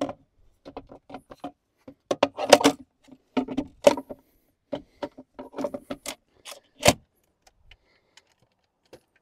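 Clicks, knocks and clunks of an e-bike's large battery pack being fitted into the frame's down tube, with keys jangling. The single loudest clunk comes a little before seven seconds in.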